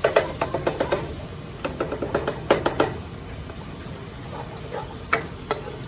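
A spoon knocking and scraping against a cooking pot while stirring frying aromatics: two quick runs of clicks and knocks in the first three seconds, then a couple of single knocks near the end.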